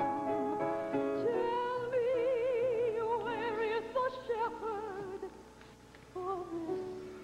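A woman singing a song in a trained, operatic style with wide vibrato over soft instrumental accompaniment. The held notes fade about five seconds in, leaving a few quieter notes.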